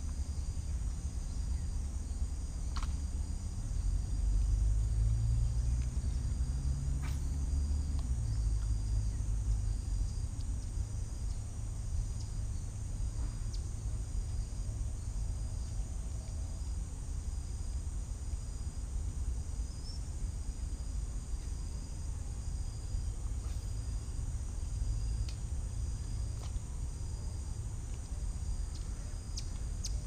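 Steady chirring of insects, a continuous high buzz, over a low rumble, with a few faint clicks.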